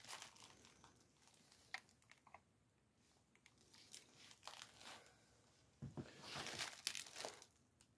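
Bubble wrap and crinkle-cut paper packing rustling and crinkling in a cardboard box as a figure is pulled out of it. Faint at first with a few soft clicks, louder for a second or two about six seconds in.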